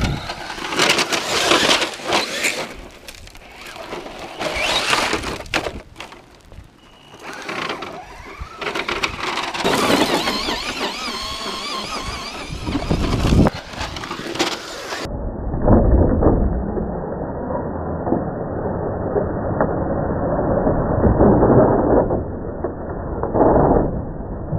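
Traxxas Slash RC short-course truck with a brushless motor on 3S LiPo driven hard over sand and gravel: motor whine rising and falling, grit spraying, and repeated sharp knocks and scrapes as it crashes and tumbles. About halfway through the sound turns duller, losing its high end.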